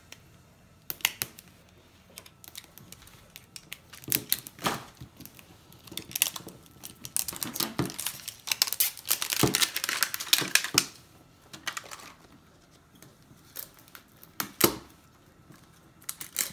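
Plastic toy packaging crinkling and tearing as small packages are unwrapped by hand, with scattered sharp clicks and snaps; the crinkling is busiest about halfway through and stops and starts irregularly.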